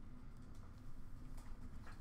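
Faint scattered ticks and taps of hockey cards and packs being handled, over a low steady hum.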